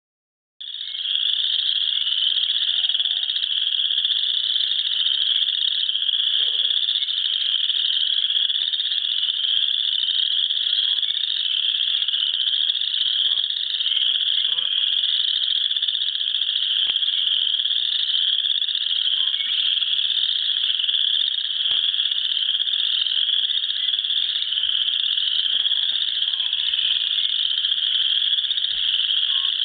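A dense spring chorus of many frogs calling over one another, a steady wall of high, overlapping rising trills. It starts about half a second in.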